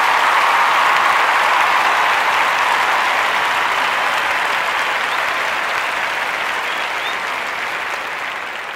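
Steady applause of many people clapping. It is loudest about a second in and slowly fades toward the end.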